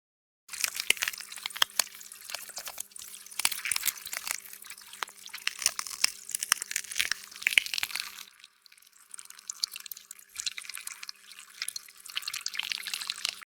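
Water splashing and dripping as a run of many small sharp clicks and splashes, easing off briefly a little past the middle, over a faint steady low hum.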